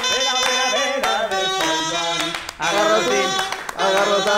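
A band playing a song, with a singing voice and struck percussion keeping the beat.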